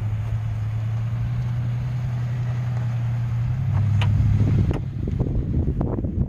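Pickup truck engine running steadily as it tows an old truck bed liner across a field. Its hum grows louder about four seconds in, then drops away, leaving wind and rustling.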